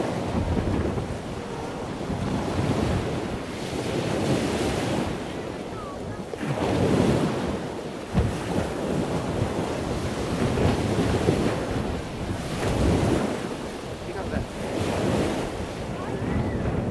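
Wind buffeting the microphone: a rushing noise that swells and fades in gusts every few seconds, with one sharp thump about eight seconds in.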